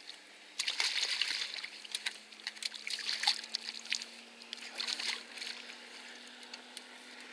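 Hooked smallmouth bass thrashing at the surface beside the boat: irregular bursts of splashing for about four and a half seconds, settling to quieter water near the end.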